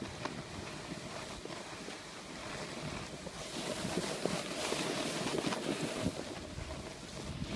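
Snowboard sliding and scraping over snow, with wind buffeting the phone's microphone; the scraping gets louder and hissier about three and a half seconds in.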